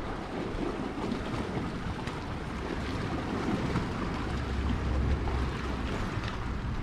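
Gale-force wind buffeting the microphone in a steady low rumble that swells a little past the middle, with the sea washing behind it.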